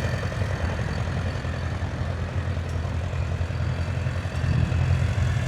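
Vintage tractor engine running steadily with a low hum, growing a little louder near the end.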